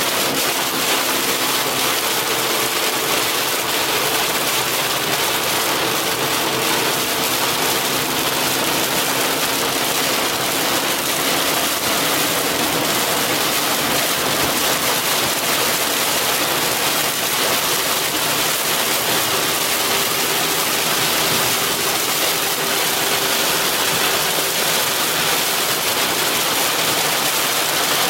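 Heavy rain pelting a moving car, a steady dense hiss, with a faint steady hum from the car underneath it.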